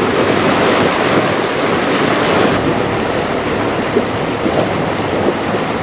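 Swollen, muddy floodwater river rushing past in a loud, steady wash of noise.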